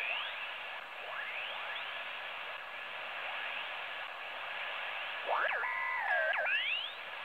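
TEN-TEC SP-325 shortwave receiver being tuned in LSB across the 40-metre amateur band: steady band-noise hiss with thin rising whistles as signals slide through the passband. About five seconds in, a louder signal sweeps past, warbling up and down for about a second.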